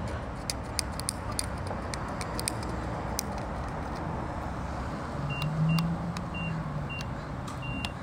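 Gas pump keypad beeping five times in short high blips at an uneven pace as a PIN is keyed in, over a steady outdoor rumble. A few light clicks come in the first few seconds.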